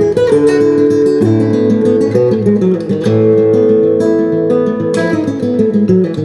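Acoustic guitar playing, plucked and strummed chords with notes ringing on.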